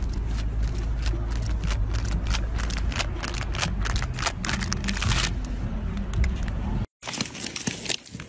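A steady low outdoor rumble with a run of crackling clicks through the middle. It cuts off abruptly about seven seconds in, and much quieter sound follows.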